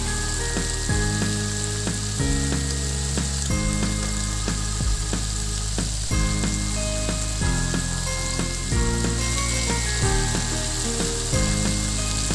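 Battered squid rings (calamares) deep-frying in plenty of hot oil, a steady sizzle, with background music underneath.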